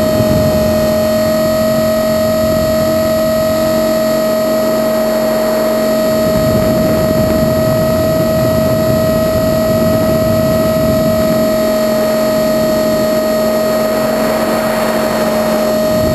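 Blade 450 X electric RC helicopter in flight, heard from its onboard camera: a steady high whine from the brushless motor and rotor, with rushing air on the microphone that swells twice.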